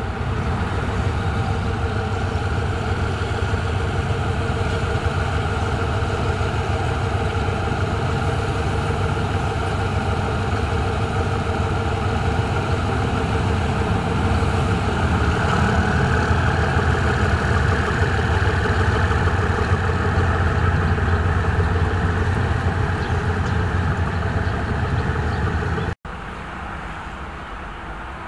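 Diesel-electric locomotive engine running with a steady low drone, growing slightly louder about halfway through. It breaks off abruptly into quieter background hiss near the end.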